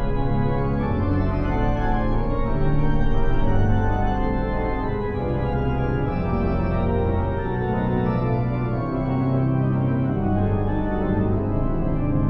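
Daniel Jaeckel Opus 43 pipe organ, a North German Baroque-style instrument, playing sustained, changing chords with a deep pedal bass beneath.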